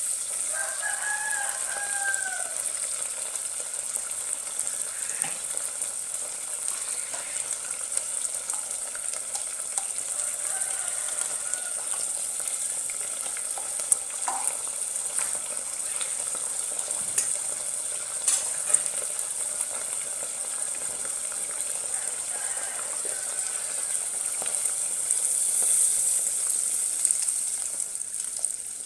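Shrimp sizzling in hot oil in a pot, stirred with wooden spatulas that knock and scrape against it. Near the end cooked mung beans in their broth are poured in.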